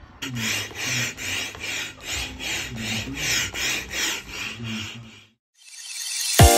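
A vacuum cleaner worked back and forth over carpet: rhythmic rasping strokes about twice a second, stopping about five seconds in. Near the end a rising whoosh leads into music.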